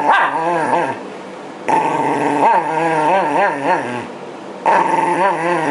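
Shiba Inu growling in protest at being brushed, in three long bouts with a wavering pitch, with short breaks about a second in and again around four seconds.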